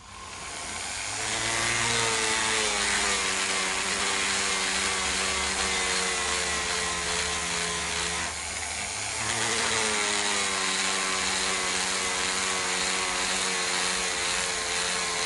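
Flexible-shaft rotary tool spinning a small abrasive disc against a knife handle, its motor running with a steady whine. The whine climbs as the tool spins up, sags once about eight seconds in as the disc bears harder on the work, then picks back up.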